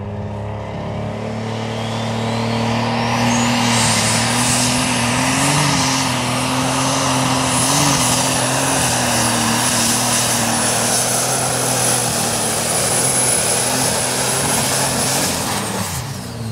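Super Stock pulling tractor's 10.4-litre, four-turbocharger, methanol-fuelled engine at full power on a pull. A turbo whistle climbs from about a second in to a high steady whine over the deep engine note, holds, then falls away with the engine near the end as the power comes off.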